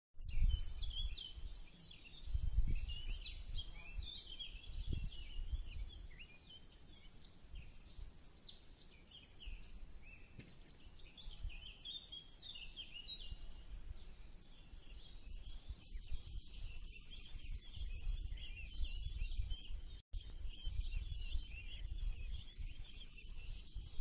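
Many small birds chirping and singing at once, short quick calls that overlap throughout, over low rumbling gusts of wind on the microphone that are loudest about half a second and two and a half seconds in.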